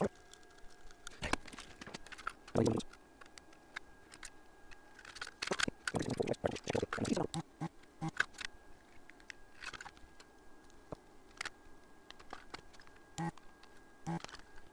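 Scattered small clicks, taps and rustles of tools and small components being handled on an electronics workbench, busiest in a cluster around the middle.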